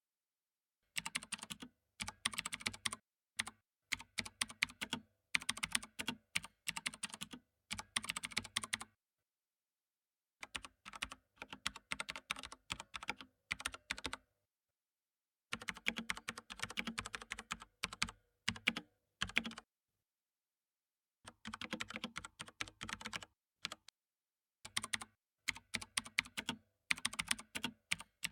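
Typing on a mechanical keyboard with Cherry MX switches: quick runs of crisp key clicks in bursts of a few seconds, with short pauses between them.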